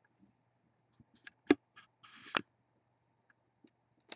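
A few sparse, separate clicks in a quiet room, the loudest about a second and a half in. A short rustle about two seconds in ends in a sharp click.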